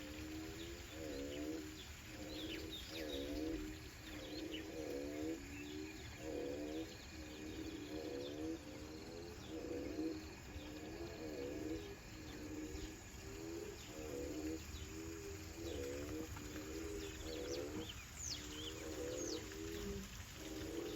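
Outdoor animal chorus: a low call repeats about once a second throughout, with short high bird chirps scattered above it.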